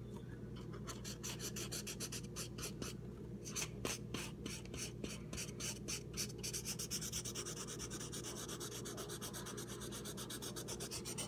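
Invisible-ink felt-tip marker scribbling on a sheet of paper, its tip rubbing across the paper in quick repeated strokes, several a second.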